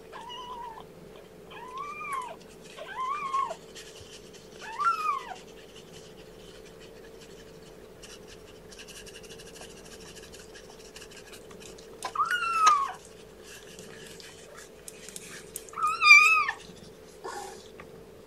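A three-week-old kitten mewing about six times, each cry rising and then falling in pitch, with the loudest near the end. The kitten is being held up and wiped with a tissue to make it pee, a handling it protests.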